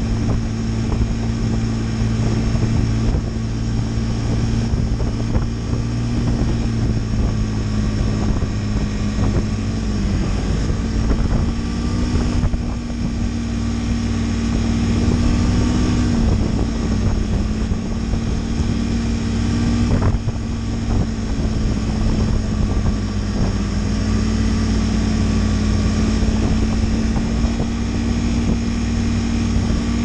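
Snowmobile engine running steadily while the sled travels along the trail. Its pitch rises a little about ten seconds in, drops back around sixteen seconds, and rises again about twenty-three seconds in.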